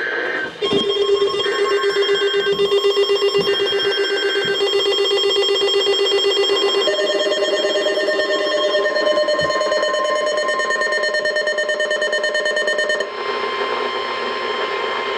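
Emergency Alert System tones on a NOAA Weather Radio broadcast. Three short screechy digital data bursts about a second apart play over a steady buzzy alert tone. About seven seconds in, other steady tones take over, and they stop about thirteen seconds in.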